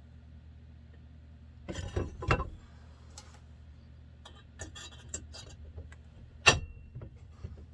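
Knocks and light clicks of chainsaw engine parts being handled and fitted together. A cluster of small clicks comes midway, and one sharp strike with a brief metallic ring comes near the end, over a steady low hum.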